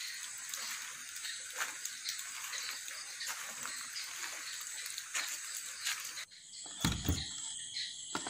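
Night chorus of frogs and insects, a dense chirping and croaking. It thins out about three quarters of the way through, and two low thuds follow.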